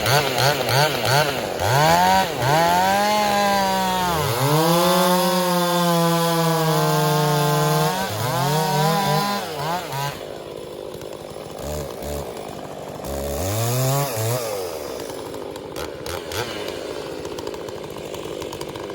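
Two-stroke chainsaw revved in quick throttle blips, then held at full throttle with its pitch sagging and recovering as it cuts dead pecan wood. About ten seconds in it drops quieter, with a few more revs later.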